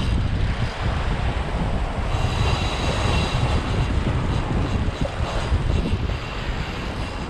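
Wind buffeting the microphone: a loud, unsteady rumble, with a faint high whine that comes in briefly in the middle.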